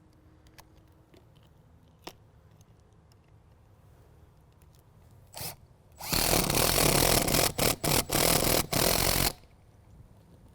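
Power drill driving a lag screw through a roof mounting pad into the truss: a short blip of the motor, then about three seconds of loud running, briefly let off a few times near the end as the screw seats.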